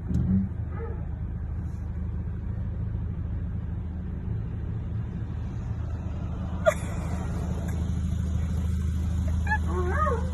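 Steady low rumble of a running vehicle, with a single sharp click about two-thirds of the way through and high, wavering whine-like calls near the end.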